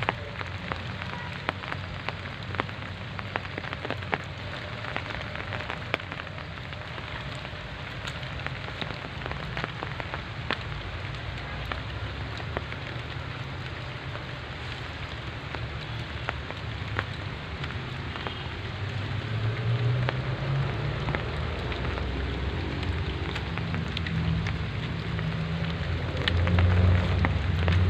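Heavy rain falling, with sharp drops ticking on a hard surface close by. About two-thirds of the way through, a low rumble builds up and is loudest near the end.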